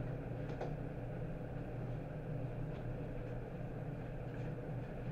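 Steady low mechanical hum of running machinery, with a couple of faint knocks about half a second in.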